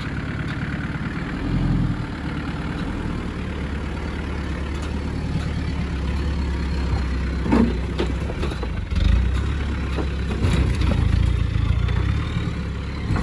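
1995 Land Rover Discovery's 300Tdi turbo-diesel engine running at low revs as the truck crawls over rock. Several sharp knocks come in the second half as the front differential bangs on the rock.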